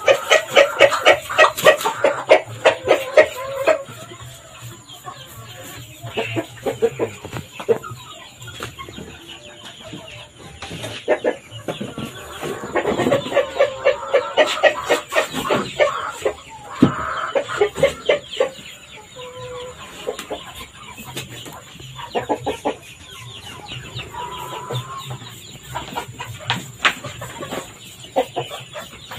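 Chickens clucking and squawking in quick runs of calls, loudest at the start and again around the middle, while they are being sprayed with a preventive solution.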